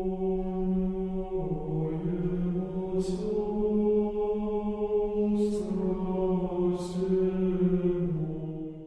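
Slow Orthodox church chant sung by low voices in long held notes, stepping to a new pitch every few seconds, with a few sung 's' sounds; it fades out at the very end.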